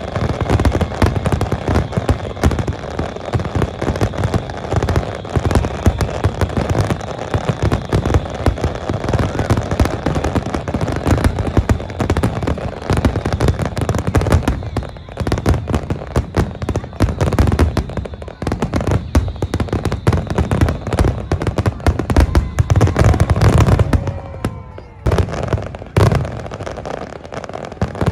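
Fireworks display: dense, continuous bangs and crackling of aerial shells bursting, with a falling whistle about twenty-four seconds in.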